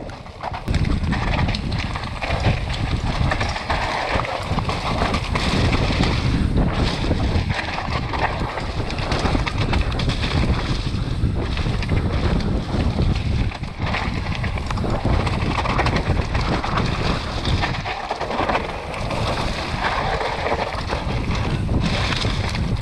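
Wind buffeting the microphone of a bike-mounted camera, over the rumble of mountain bike tyres running fast down a dirt trail strewn with loose stones. The noise is steady, with a few brief dips.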